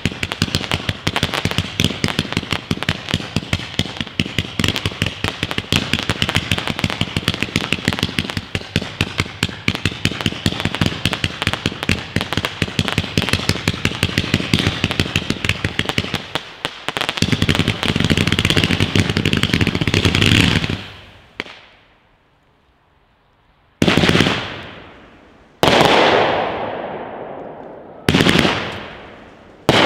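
A 228-shot, 500-gram zipper firework cake fires a rapid, continuous stream of shots in quick succession for about twenty seconds, then stops. After a brief near-quiet gap, four separate loud shots go off, each trailing away over a second or two as the cake's last shots fire.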